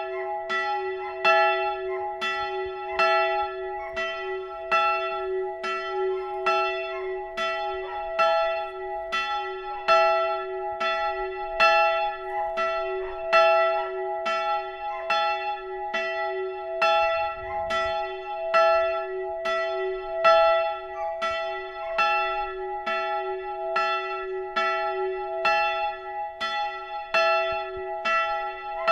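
A single swinging church bell ringing, its clapper striking about twice a second with the hum of the bell sustained between strokes. It is the one-bell pre-ringing that calls to a church service half an hour ahead.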